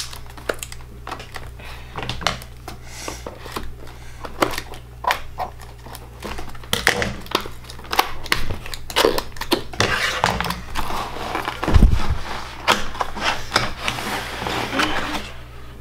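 Cardboard keyboard box and its packaging being handled and opened: rustling, scraping and many small clicks, busier toward the end, with one heavy bump about three quarters of the way through.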